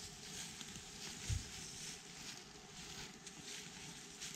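Faint rustling and footsteps, with a soft thump about a second in.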